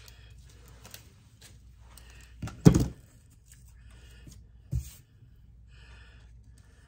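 Paper rustling and small clicks as rub-on sheets are handled on a craft table, with a loud thump about two and a half seconds in and a softer one near five seconds. After that come faint, repeated scratchy strokes as a rub-on transfer is burnished onto the page.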